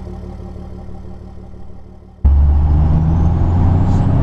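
A steady tone fades out. About two seconds in, a sudden cut brings in the loud, steady running of a first-generation Dodge truck's 12-valve Cummins inline-six turbo-diesel, heard from inside the cab while driving.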